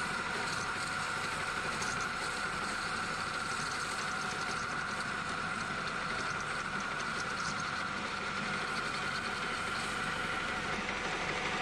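Metal lathe running while a parting tool cuts off a 3-inch black steel pipe: a steady cutting tone over the machine's hiss, with a fine crackle of chips breaking away.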